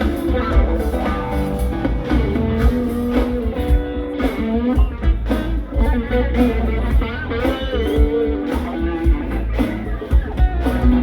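Live rock band playing an instrumental jam: electric guitar lead with bending notes over bass and a steady drum beat.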